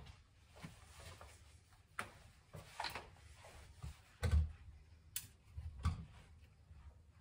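Handling noise from a PCP air rifle being set on a shooting rest and readied: scattered short clicks and knocks, with a louder thump about four seconds in and a sharp click just after.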